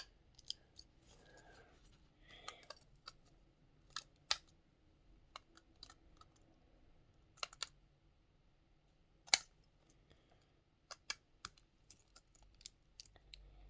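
Quiet, scattered sharp clicks and taps of hard plastic building pieces being handled and pressed together, with a louder click about nine seconds in. This is a stiff light-up piece being forced onto the model.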